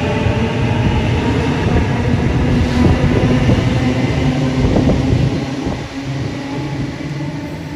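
NSW TrainLink D set double-deck electric train passing through an underground station platform and running off into the tunnel. Its rumble is loud at first, then fades about five and a half seconds in as it recedes.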